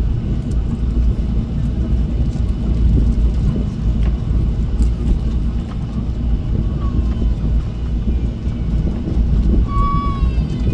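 Cabin noise of a Jeju Air Boeing 737 taxiing: a steady low rumble from the engines and the wheels rolling over the taxiway. A short pitched tone comes near the end.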